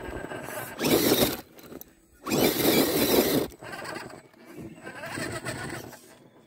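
Radio-controlled Axial UMG 6x6 crawler's brushless motor and drivetrain running in two bursts of throttle, a short one about a second in and a longer one a little later, as its tyres scrabble up a rock ledge.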